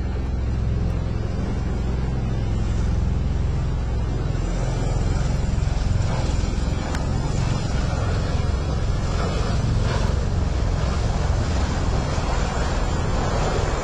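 Helicopter rotors beating low and steady, with rotor wash blowing on the microphone; the rush of wind grows stronger from about three seconds in.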